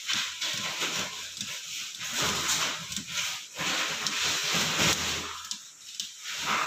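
Miniature circuit breakers on a panel board being switched on one after another, giving sharp clicks over a loud rushing hiss.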